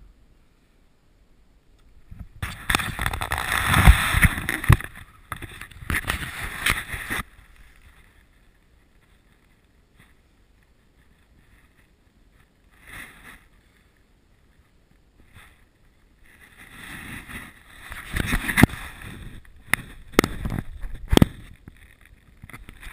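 Wet rustling and slapping from a tiger trout being handled and flapping in a mesh landing net on grass, with sharp knocks. It comes in bursts of a few seconds each, with a quiet stretch in the middle.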